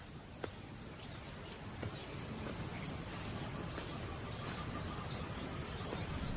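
Ambient wild soundscape: a steady, high insect drone over a soft hiss, with a few faint ticks, slowly growing louder.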